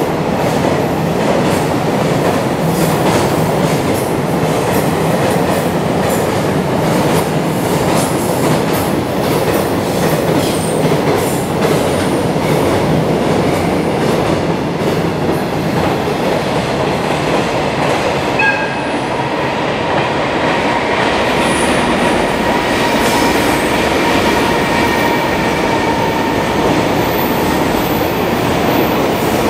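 Long freight trains of container wagons passing close by, a steady loud rumble with the wheels clacking over the rail joints. From about two-thirds of the way in, a faint high squeal from the wheels runs along under the clatter.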